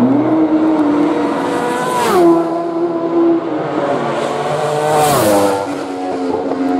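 Two TT race motorcycles passing one after the other at racing speed. Each one's high engine note falls sharply in pitch as it goes by, about two seconds in and again about five seconds in.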